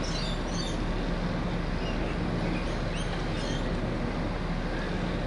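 Rainbow lorikeets giving a scattered handful of short, squeaky chirps, mostly in the first second and again around the middle, over a steady low drone of distant traffic.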